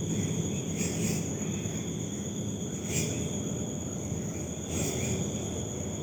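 Night insects trilling steadily in high thin tones, with brighter swells about every two seconds, over a low background hum.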